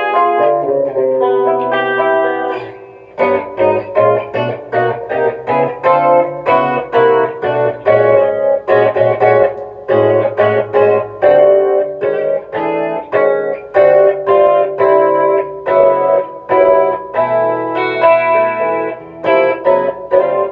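Electric guitar played through a Gallien-Krueger 250RL amp head's clean channel with compression and chorus on: picked notes and chords in quick succession, with a short drop in level about three seconds in.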